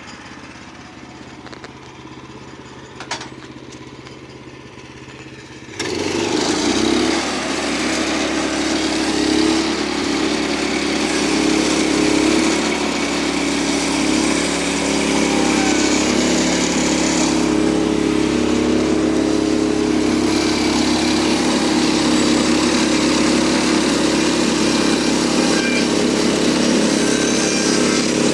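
Gas engine of a Woodland Mills HM122 portable bandsaw mill idling, with a single click about three seconds in; about six seconds in it is throttled up suddenly and runs loud and steady at full speed, driving the band blade through the log.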